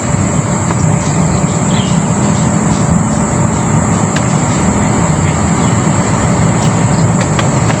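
A steady low rumbling noise, unchanging throughout, with a few faint ticks.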